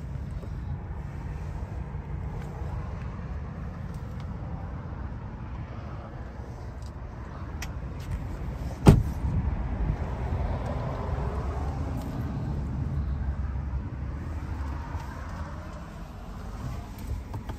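A single thud from the door of a 2022 Ford F-150 Lightning being shut, about nine seconds in. Around it is a steady low rumble of wind and handling noise on the microphone.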